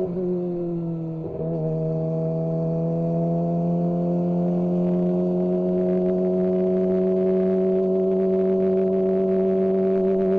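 Kawasaki ZX-25R's 249 cc inline-four engine running under way with a steady high, buzzing note. The revs sag over the first second, pick back up sharply about a second and a half in, then climb slowly and evenly.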